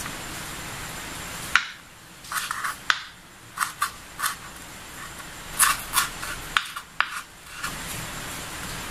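A kitchen knife slicing a rolled turmeric leaf into thin strips on a bamboo cutting board: a string of sharp, irregular cuts as the blade taps the board. The cutting starts about a second and a half in and stops a little before the end.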